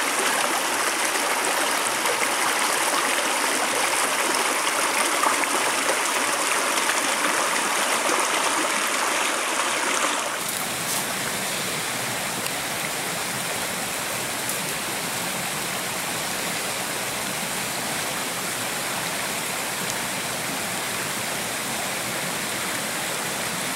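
Small rocky headwater stream rushing over stones, a steady loud rush of water. About ten seconds in it drops to a softer, steadier flow of the same creek.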